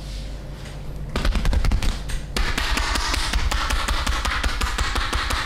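Rapid percussive massage strokes: a fast run of taps or slaps on the body, starting about a second in and going on at several strikes a second.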